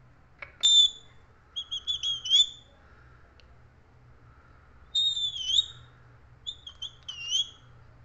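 Rose-ringed (Indian ringneck) parakeet whistling: several short phrases of clear, high notes, some ending in a rising or swooping note, with pauses between.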